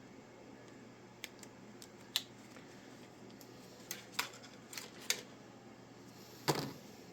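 Quiet, scattered clicks and snips of wire clippers cutting heat-shrink tubing and of the tubing and wire being handled, with one heavier knock about six and a half seconds in.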